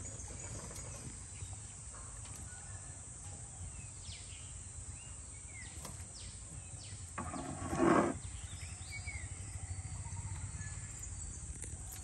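Gill net being hauled by hand over the side of a canoe out of a river: water dripping and splashing off the mesh, with one louder splash about eight seconds in. Birds chirp in the background.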